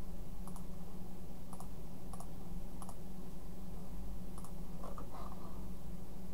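Computer mouse clicking, a handful of separate clicks at irregular intervals, over a steady low hum.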